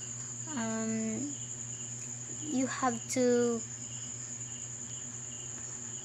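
A woman's voice making two drawn-out hesitation sounds, the first a flat held hum about half a second in, the second louder about two and a half seconds in. Under it runs a steady high-pitched tone, with a faint low hum.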